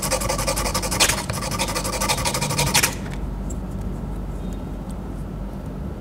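Small brass fitting rubbed rapidly back and forth on abrasive paper, a fast rasping scrape that grinds its end face flat. The scraping stops about three seconds in, leaving a low steady hum.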